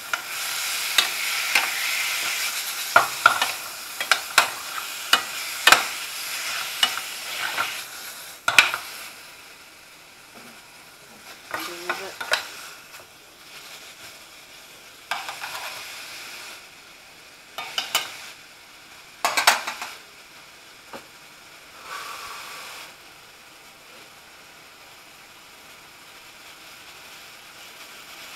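Diced pork chop pieces sizzling in a stainless steel skillet while a utensil stirs them, with many sharp clicks of the utensil against the pan for the first eight seconds or so. After that the sizzle is quieter, broken by a few short bursts of stirring, and settles into a steady faint hiss near the end.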